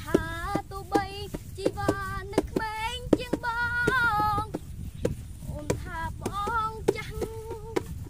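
A boy singing a high tune in short phrases, with a longer wavering phrase about three seconds in. Frequent sharp clicks and a low rumble run underneath.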